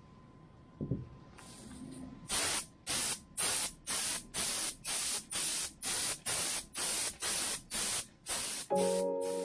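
Gravity-feed air spray gun spraying paint in short hissing bursts, the trigger pulled about twice a second, starting about two seconds in.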